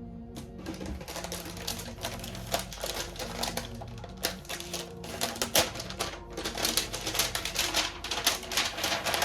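Fast typing on a laptop keyboard: a dense, irregular run of quick key clicks that grows busier about halfway through, over quiet background music.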